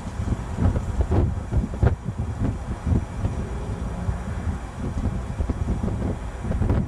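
Diesel freight locomotives (a GE Dash 9-40CW leading a GP60) rumbling as the train slowly gets under way, with irregular low thumps of wind buffeting the microphone.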